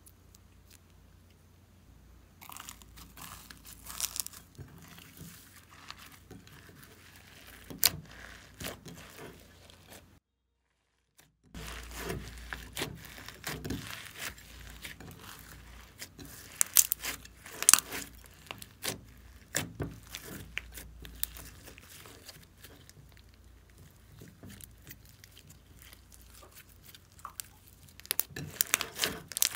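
Hands squeezing and kneading white glossy slime full of crumbled pink makeup and glitter in a glass bowl: irregular wet squelches with crackles and clicks. It starts about two seconds in and drops out briefly about ten seconds in.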